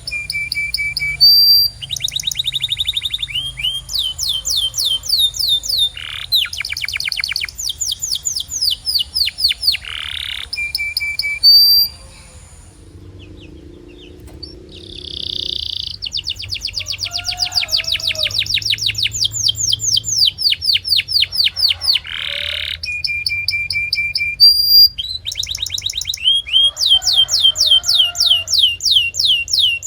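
Domestic canary singing: fast trills of rapidly repeated, down-slurred high notes, broken by short held whistles and a brief pause about twelve seconds in.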